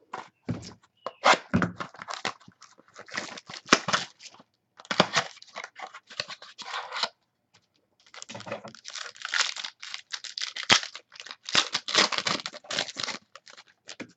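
Plastic wrapping of a trading card box or pack being torn open and crinkled: irregular ripping and rustling, in two long stretches with a short pause about halfway through.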